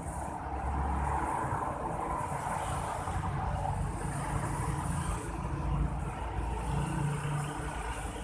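Motor vehicle noise on a street: a steady low rumble.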